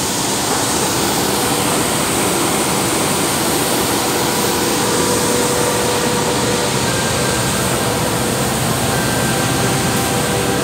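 Steady, loud machinery noise, an even rush with a few faint steady tones running through it; a higher tone joins past the middle.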